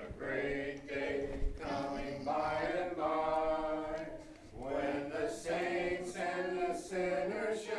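Church congregation singing an invitation hymn a cappella, many voices together holding long notes.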